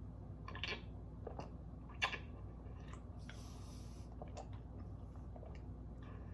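A few light clicks and taps of objects being handled, the loudest about two seconds in, with a brief hiss lasting about a second, about three seconds in.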